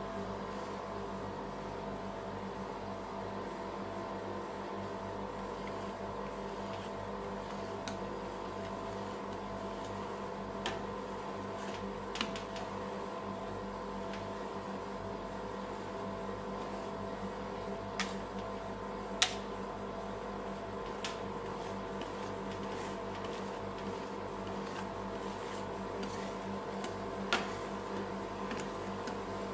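Steady hum of a rolled-ice-cream cold plate machine's refrigeration unit, several constant tones, with a handful of sharp clicks as steel spatulas tap and scrape on the frozen steel plate, the loudest about two-thirds through.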